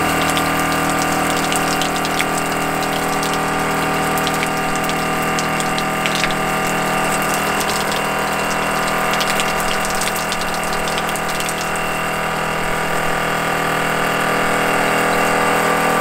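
Small electric water pump running steadily, pushing water through a handheld shower head that sprays onto the wooden floor. The portable gas water heater has not fired, so the water is still cold; the flow is turned all the way up, too much for the heater to kick on.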